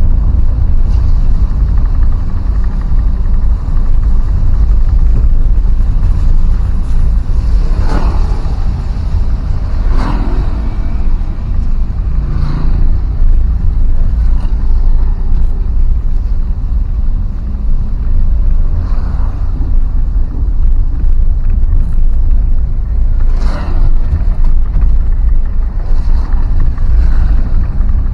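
Road travel noise from a moving vehicle: a steady, loud, low rumble with wind on the microphone. A few brief louder swells come as other vehicles pass.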